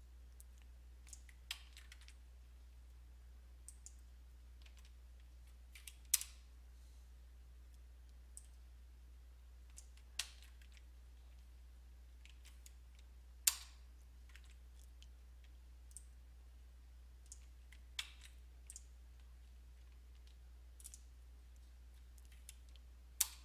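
Scattered single clicks from a computer mouse and keyboard, a few seconds apart, as commands are copied, pasted and run, over a steady low electrical hum.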